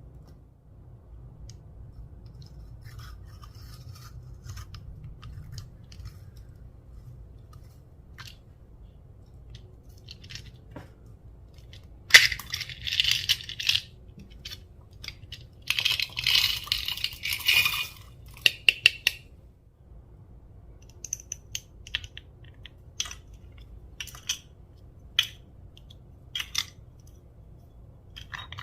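Slime being worked by hand: sticky crackling and squelching in two loud bursts of about two seconds each, with small pops and clicks scattered before and after.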